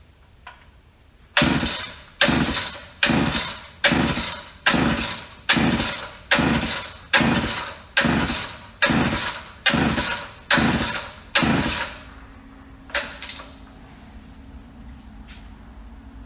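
A two-stroke Homelite Super XL Automatic chainsaw being pull-started on choke, its recoil starter yanked about a dozen times in quick, even succession while the engine turns over without catching. It fails to fire because the carburetor is not drawing fuel up the line.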